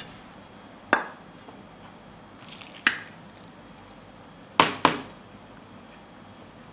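Metal spoon knocking against a stainless steel bowl while stirring roasted rice flour and water into dough: four sharp knocks, the last two close together.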